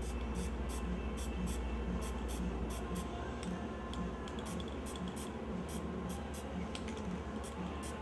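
A can of white spray paint hissing as dots are sprayed onto a poster board, over background music with a steady beat.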